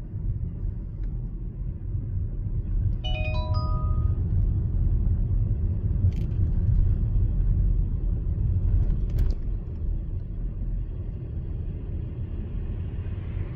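Steady low rumble of road and engine noise inside a moving car, with a short electronic chime of a few rising tones about three seconds in, like a car navigation alert, and a couple of faint clicks.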